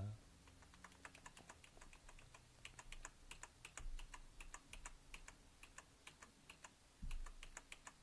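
Faint, irregular clicking of computer keyboard keys pressed over and over, several a second, with a soft low thump near the end.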